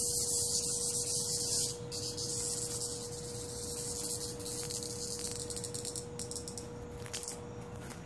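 Cicada buzzing: a loud, dense, high-pitched buzz that eases a little about two seconds in and falters briefly near the end, with a steady low hum underneath.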